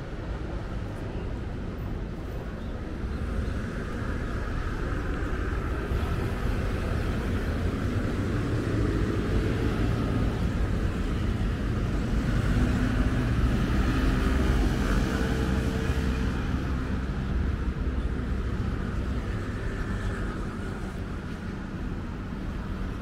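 Outdoor urban traffic: a motor vehicle's engine grows louder, peaks about two-thirds of the way through and fades as it passes, over steady city background noise.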